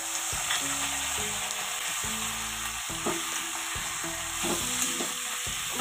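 Raw chicken pieces sizzling in hot mustard oil with fried onions in a kadai, a spatula stirring and scraping them around the pan with a few short scrapes.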